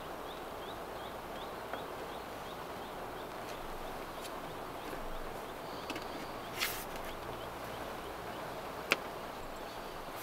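Steady rain falling, with a bird giving a fast run of short, high chirps through the first half. Two sharp taps come later, one about two-thirds of the way in and one near the end.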